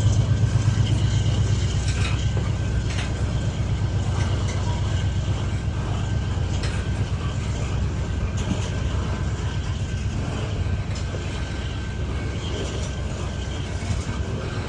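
Loaded grain hopper cars of a long freight train rolling past, a steady low rumble with scattered sharp wheel clicks.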